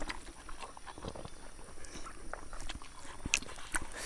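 Eating sounds: scattered small wet clicks and smacks of people chewing smoked pork and picking at food on banana leaves with their fingers, with one sharper tick about three and a half seconds in.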